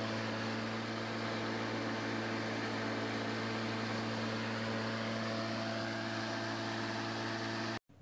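Black & Decker electric lawnmower's brushed motor running steadily: a constant hum over a rushing noise, cutting off abruptly near the end. The mower is running again after its bridge rectifier was replaced.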